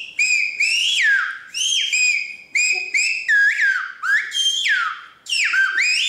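A man whistling with a finger in his mouth and a hand cupped around it, in the manner of Silbo Gomero, La Gomera's whistled language. It comes as a string of short, loud whistled notes that swoop up and down in pitch, with brief breaks between them.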